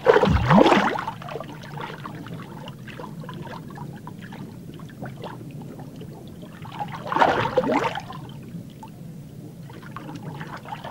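Pirarucu (arapaima) sucking in prey underwater: a loud gulping rush of water just after the start and a second one about seven seconds in, over a steady low underwater rumble.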